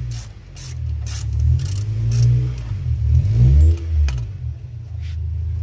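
A car engine running with a low rumble, revved up and let back down several times.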